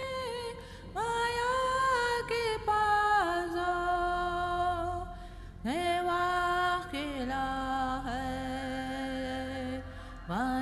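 Background music: a slow, chant-like sung melody of long held notes, each sliding up into its pitch, with new notes starting about a second in, near the middle and near the end.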